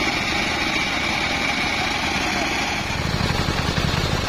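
Engine of a band sawmill running steadily, with a high whine over it; about three seconds in it becomes louder and lower, with an even pulsing beat.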